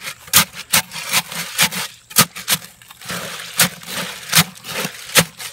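Post hole digger blades jabbing and stirring wet concrete mix at the bottom of a post hole: about a dozen sharp, irregular scraping clacks, with gritty scraping between them.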